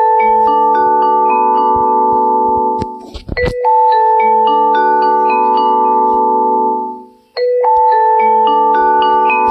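A ringtone melody in a mallet-percussion sound like marimba or glockenspiel: a short phrase of struck, ringing notes that climbs over held lower notes, then fades and starts again about every four seconds. A short noisy hit falls just before the second repeat.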